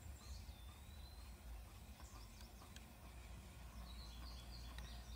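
Faint outdoor ambience: small birds chirping, with a falling whistle about half a second in and repeated high chirps near the end, over a low steady rumble.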